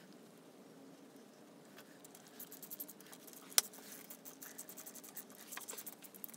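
Quiet, quick light clicks and scratches from a small hand driver and fingers working the oil filter cover bolts on a KTM 690 engine case. There is one sharper click about three and a half seconds in.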